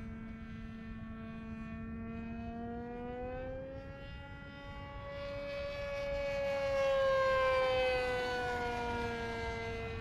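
Radio-controlled model plane's motor and propeller whining overhead: a steady high whine that climbs in pitch and grows louder about halfway through, then drops back in pitch near the end.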